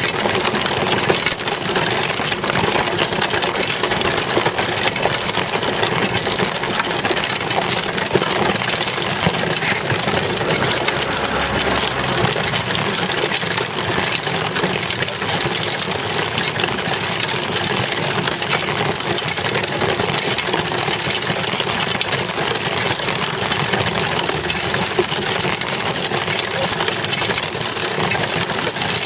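Child's bicycle rolling over rough asphalt, heard through a camera mounted on the bike: steady tyre noise and a dense, unbroken mechanical rattle from the frame and mount.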